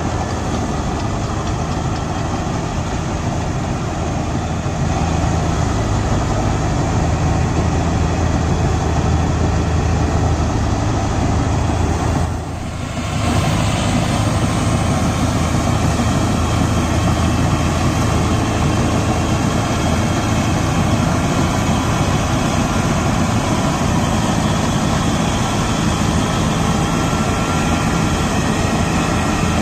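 Tractor-mounted combine harvester running: a steady diesel tractor engine drone under a dense mechanical rush, with a brief drop in level about halfway through.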